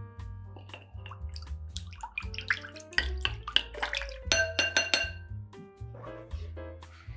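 Light background music with a steady bass line, over a wooden spoon stirring salted water in a glass bowl: sloshing water and light clinks against the glass about halfway through.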